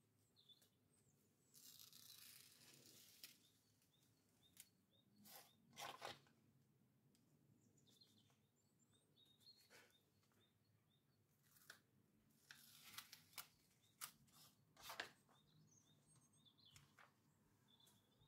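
Faint rustling and crinkling of a diamond-painting canvas's protective cover sheet being peeled back from the adhesive and handled, with a few soft taps.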